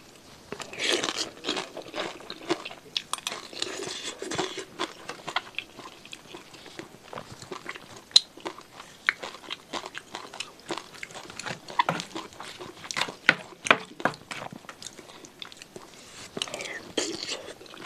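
Close-miked eating of noodles and chicken-feet satay in sauce. There is a long slurp of noodles about a second in and another near the end, with wet chewing and many sharp smacking clicks between.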